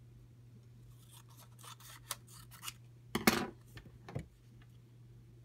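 Paper collage pieces being handled and pressed onto a notebook page on a wooden table: scattered soft rustles and small taps, with a louder rustle-and-knock a little over three seconds in, over a steady low hum.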